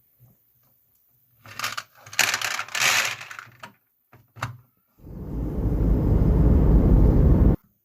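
Marbles on a HABA wooden block marble run: a burst of clicking and rattling as they knock along the blocks, a couple of single clicks, then from about halfway a steady low rolling rumble that cuts off suddenly near the end.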